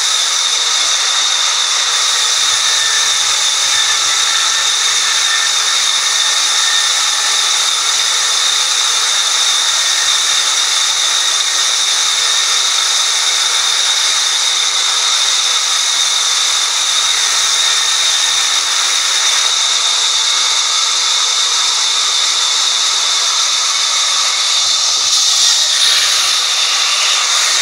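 Large vertical band sawmill cutting a log lengthwise: a steady, loud high-pitched whine over a hiss, briefly a little louder near the end.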